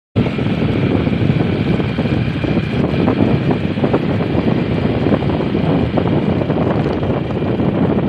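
Motorcycle riding along a road: steady engine running mixed with wind rumble on the microphone.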